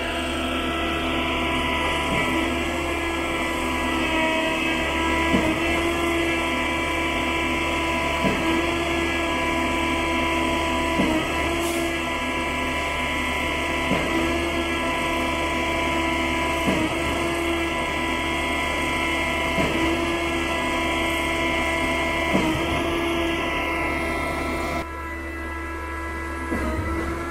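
Truck-mounted mortar boom pump running: a steady machine whine with a regular knock about every three seconds. The sound thins and drops a little near the end.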